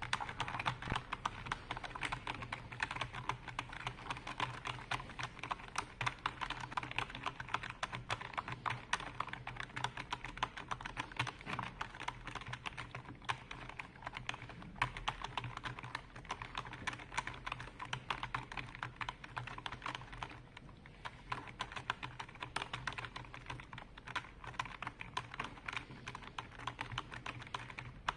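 Computer keyboard being typed on continuously, a rapid, uneven stream of key clicks with a brief lull about two-thirds of the way through. A steady low hum sits underneath.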